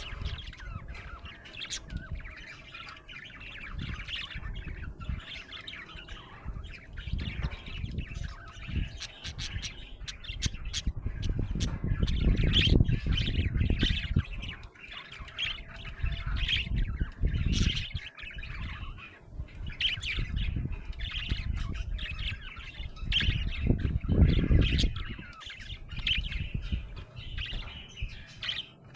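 Budgerigar chattering continuously with rapid chirps, squawks and warbles. There are bursts of low rumble twice, about twelve seconds in and again near twenty-four seconds.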